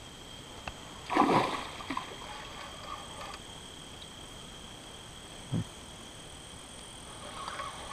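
Night insects calling steadily in two high, unbroken tones. A loud splash in the water comes about a second in, and a short low thump a few seconds later.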